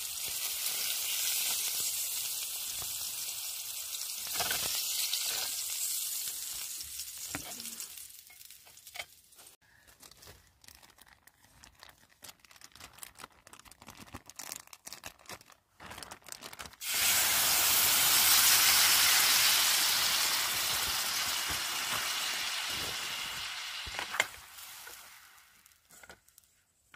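Sirloin steak sizzling in a frying pan, a steady hiss that dies down to quieter scattered crackling midway. A louder sizzle starts suddenly about two-thirds in, then fades away near the end.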